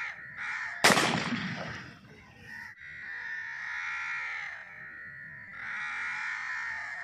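A single shotgun shot about a second in, its report dying away over about a second, followed by wavering, high-pitched bird calls.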